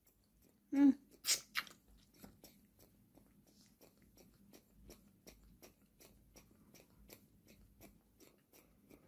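Baby monkey sucking milk from a feeding bottle: faint, regular smacking clicks of its mouth on the teat, about three a second. A couple of short, louder sounds come about a second in.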